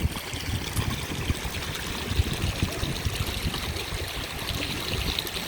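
Stream water running and trickling over rock at a waterfall, a steady, even rush of water.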